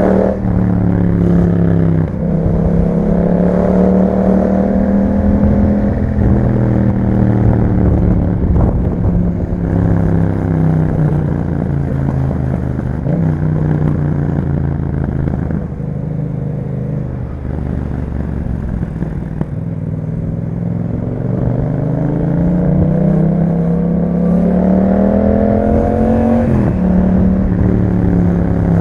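2021 Yamaha MT-07's 689 cc parallel-twin engine breathing through an aftermarket Akrapovič exhaust, pulling under throttle. Its pitch climbs and drops sharply at an upshift right at the start and again near the end, and it settles lower while the revs ease off through the middle.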